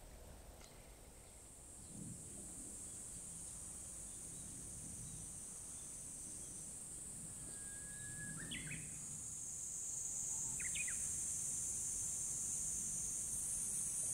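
Steady high-pitched insect drone, growing louder over the last few seconds, with a couple of short bird calls about eight and eleven seconds in.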